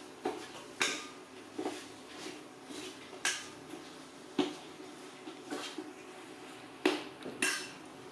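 Dishes and utensils clinking and knocking on a kitchen counter in an irregular run of sharp clicks, with the loudest knocks a little before and at the seven-second mark.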